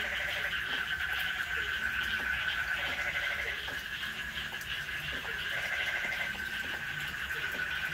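Night chorus of frogs and insects: a steady, fast high trilling throughout, with lower rattling frog calls about a second long repeating every couple of seconds.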